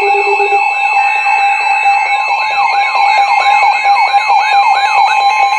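An electronic siren rapidly sweeping up and down, about three sweeps a second, over steady high alert tones. The sweeping stops about five seconds in, leaving the steady tones.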